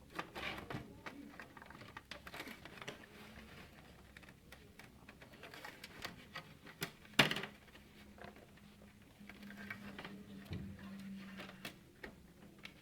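Scattered light plastic clicks and rattles of a computer's CPU fan and its clips being pushed and wiggled to free it, with one sharp loud click about seven seconds in.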